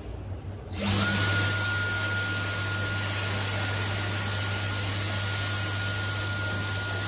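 Wall-mounted electric hand dryer switching on about a second in and running steadily: a loud rush of air with a high, even motor whine, used to blow-dry wet hair.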